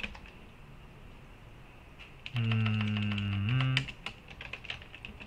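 Computer keyboard typing: scattered keystrokes. About midway a man's drawn-out hum, a steady low tone held for over a second that steps up in pitch near its end, is the loudest sound.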